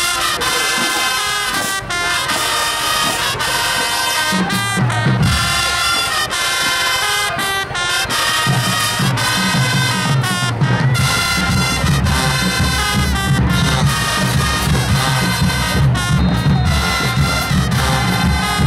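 High school marching band playing a brass tune: trumpets, trombones and sousaphones. The sousaphone bass line comes in about four seconds in and fills out from about eight seconds on.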